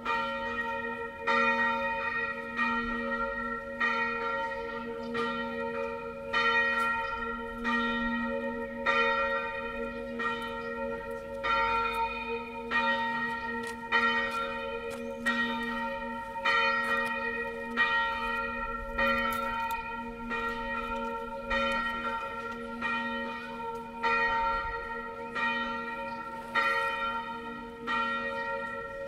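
A single church bell, the 276 kg B-flat bell cast by Achille Mazzola in 1928, ringing alone as it swings full in the Tyrolean style, its clapper striking about once a second with each stroke ringing on into the next.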